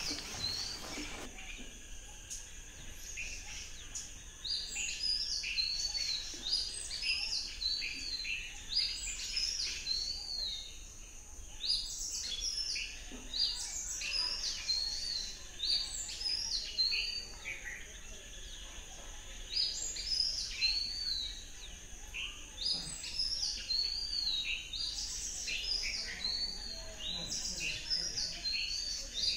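Forest birds calling, many short chirps and down-slurred whistles repeating over one another, above a steady high-pitched hum.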